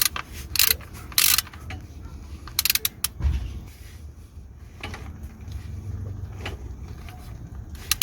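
Ratchet of a torque wrench clicking in a few short bursts in the first three seconds as the 13 mm sump drain plug is tightened to torque.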